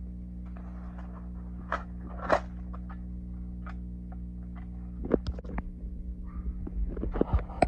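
Packaging being handled: scattered rustles, clicks and light knocks, a few at first and thicker in the last few seconds, over a steady low hum.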